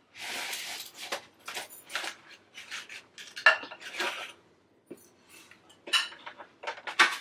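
Foam takeout containers and plastic forks being handled on a table: a scraping rustle, then scattered light clicks and scrapes, and a foam clamshell lid opened near the end.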